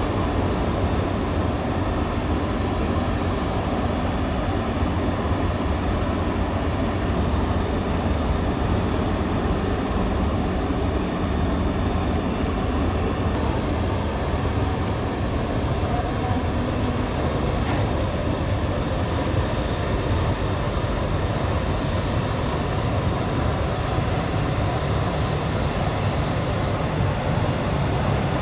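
Hayabusa-class missile boat's gas turbines and waterjets running steadily as it passes at speed: a continuous deep rushing rumble with a thin, high, steady tone above it.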